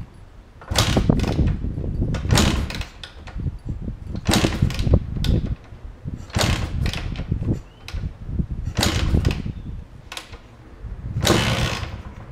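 Montesa Cota 260 single-cylinder two-stroke being kick-started cold after a rebuild: about six kicks a second or two apart, each a short burst of cranking noise, without the engine catching into a steady run.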